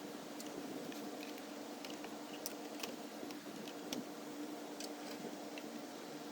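Scattered light clicks and taps of composite garden-bed boards and plastic snap-lock brackets being handled and fitted, over a steady room hum.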